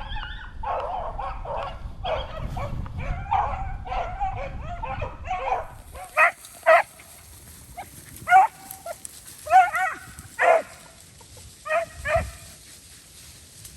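A pack of beagles baying on a running rabbit's trail: a dense chorus of several overlapping hounds for the first half, then single loud bays spaced about a second apart.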